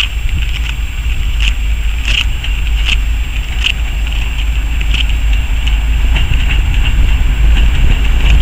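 Two ST44 (M62-type) diesel locomotives with two-stroke V12 engines working under load at the head of a coal train. Their deep engine rumble grows louder as they approach, with brief high squeaks or clicks about once a second.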